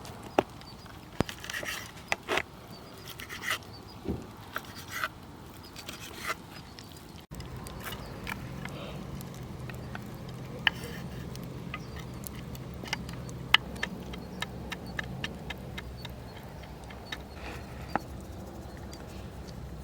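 Scraping and clinking as cooking gear is handled, then a wood campfire crackling: sharp irregular pops over a steady low rumble.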